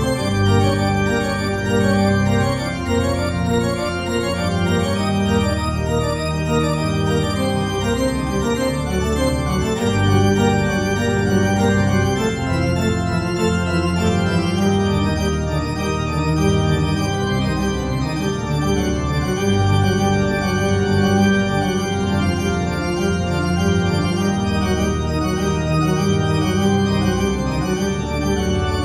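Organ music accompaniment playing slow held chords over a deep sustained bass, the chords shifting every few seconds.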